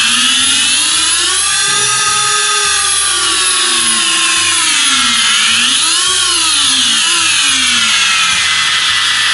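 The four brushless motors of an FPV Style Unicorn 220 racing quadcopter spinning with no propellers fitted, a motor test after arming. Their whine climbs, peaking about two seconds in, sinks, then climbs again to a sharper peak about six seconds in and falls away as the throttle is raised and lowered.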